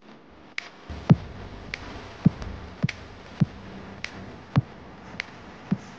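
Car turn-signal relay ticking evenly, alternating a sharp high click with a duller low tick about twice a second, over the low hum of the car moving.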